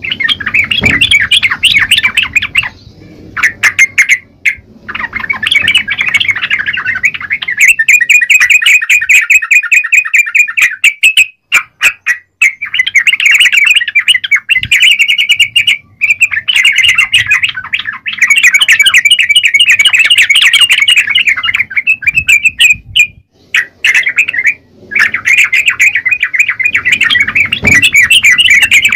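Yellow-vented bulbul (trucukan) singing loudly, in long runs of rapid chattering notes broken by short pauses.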